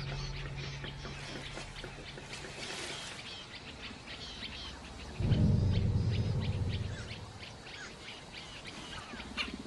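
Small birds chirping repeatedly in the background. A loud low rumble starts suddenly about five seconds in and fades over about two seconds.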